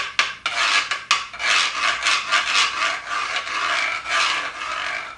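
A güiro built into a rain stick, scraped over and over along its ridges, giving a continuous run of quick rasping strokes.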